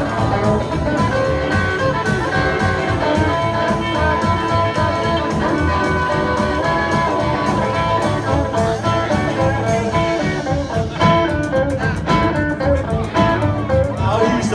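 Rockabilly band playing live: electric guitars over a steady beat, heard from within the crowd.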